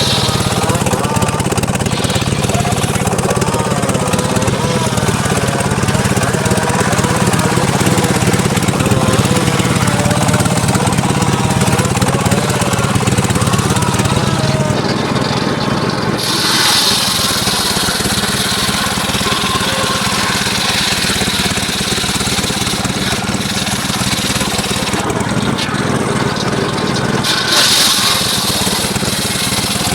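Engine-driven circular sawmill running and sawing mahogany: a steady engine drone under the noise of the big blade cutting through the wood. About halfway through, the cutting noise turns higher and sharper, with another sharp rise near the end.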